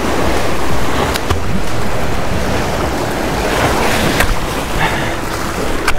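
Ocean surf washing and breaking over low sea rocks, a steady rushing noise mixed with wind on the microphone.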